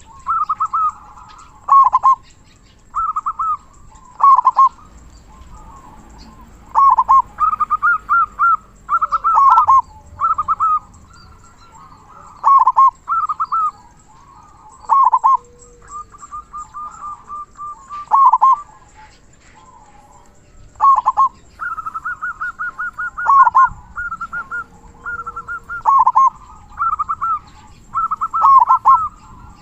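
Zebra dove (perkutut) singing over and over. Each short phrase is a quick rolling run of notes ending in a deeper downward 'kung' note, and phrases follow one another with brief gaps.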